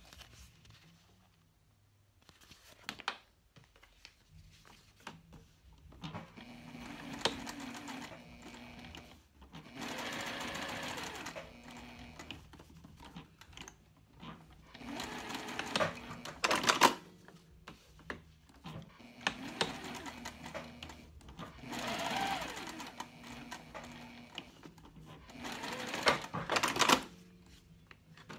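Juki TL-2010Q straight-stitch sewing machine topstitching cork fabric in several short runs of a few seconds each, stopping briefly between seams.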